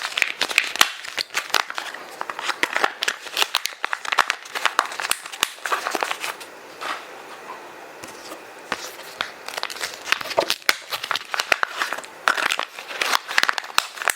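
Kraft paper and plastic bags crinkling and crackling as they are stuffed into a zip bag, in dense irregular rustles with a brief quieter lull about halfway through.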